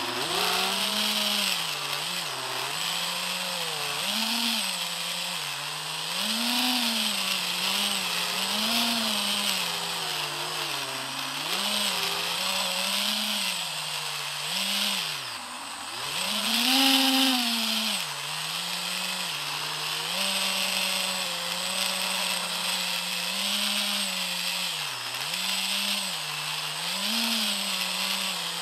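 A small drone's electric motors and propellers buzzing, heard from its own onboard camera. The pitch rises and falls with the throttle, drops briefly about fifteen seconds in, then surges loudest just after.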